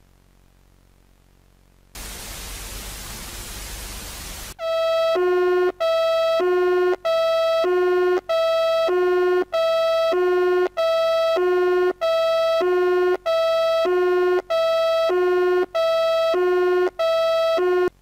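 A burst of static hiss about two seconds in, then a loud electronic emergency alert tone alternating high and low, about one high-low cycle a second, repeating steadily until it cuts off at the end.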